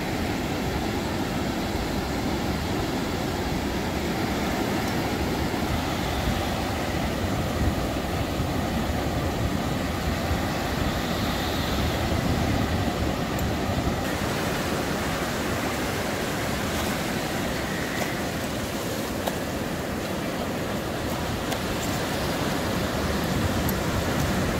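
Surf breaking on a sandy beach: a steady wash of waves, with wind rumbling on the microphone.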